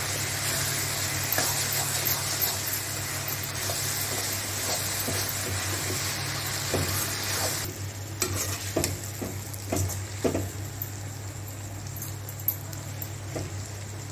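Chopped vegetables sizzling in oil in a stainless steel kadai while a steel spatula stirs and scrapes the pan. The sizzle is loud for about the first half, then drops off sharply, leaving the spatula's scrapes and taps.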